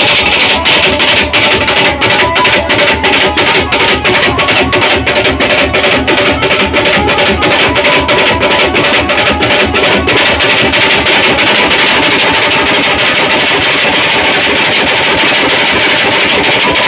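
Procession drum band of snare and bass drums beating a fast, steady rhythm, loud and harsh on the phone's microphone. About ten seconds in, the separate strokes blur into a dense, continuous wash of music.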